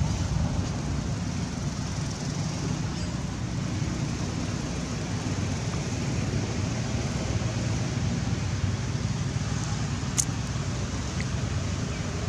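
Steady low outdoor background rumble with a light hiss above it, and a single sharp click about ten seconds in.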